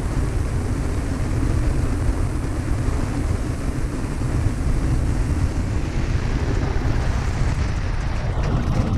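Cessna 152's four-cylinder piston engine and propeller running steadily, with a hiss growing brighter from about six seconds in.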